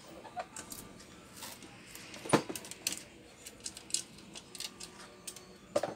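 Scattered light clicks and clinks of small hard objects being handled on a workbench, with one sharper tap about two seconds in.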